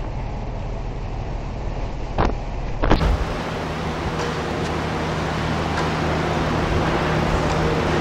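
Wind and rushing sea noise from a warship in storm waves, with two sharp thumps between about two and three seconds in. At about three seconds the sound changes abruptly and a steady low hum runs under the wind and water.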